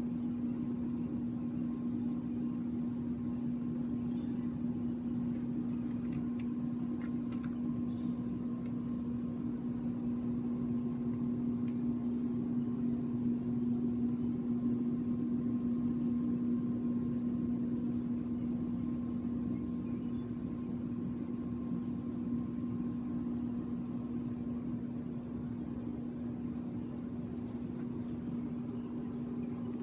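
Steady mechanical hum with a strong, even low drone, swelling a little near the middle and easing slightly toward the end.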